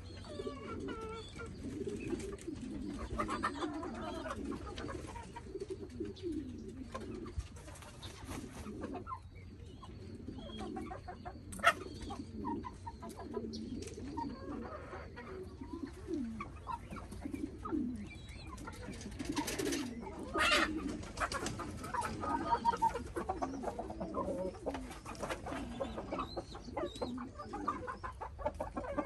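Penned chickens clucking and calling, many short low calls overlapping throughout, with some higher calls mixed in. A single sharp click stands out about twelve seconds in.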